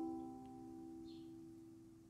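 The last chord of background music ringing out and fading away, dying to near silence about half a second in.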